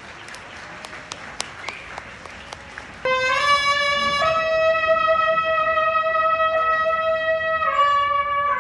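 Crowd noise with scattered sharp claps, then about three seconds in a street brass band comes in loudly on a long held note that steps up to a higher note and later back down.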